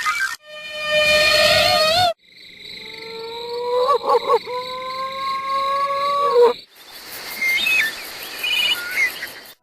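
Sound-effect clips spliced back to back with sudden cuts: a wavering pitched call, then a longer steady tone that wobbles briefly partway through, then a hiss with short chirps.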